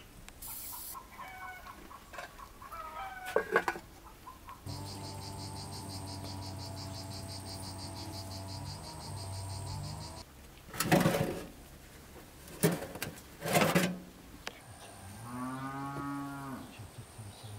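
Cattle mooing: one long low moo lasting about five seconds, starting about a third of the way in, and a shorter moo that rises and falls near the end. Between them come three sharp, loud knocks.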